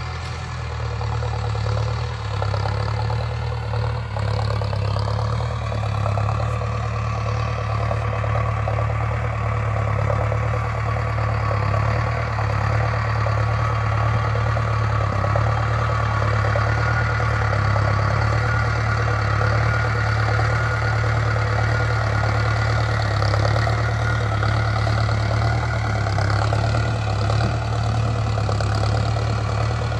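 Mahindra Arjun Novo 605 DI-i tractor's diesel engine running steadily under load as it pulls a seed drill through ploughed soil. It gets louder over the first few seconds as the tractor comes closer.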